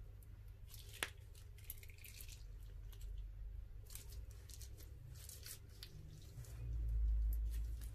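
Soft wet scraping and squishing of a tool dragged through slime in a glass baking dish, in short irregular strokes with a sharp click about a second in. A low rumble near the end is the loudest sound.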